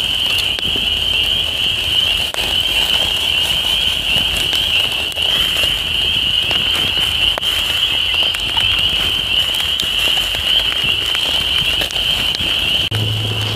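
Campfire crackling and popping under steaks on a wire grill, over a loud, steady, high-pitched shimmering drone. A low hum comes in near the end.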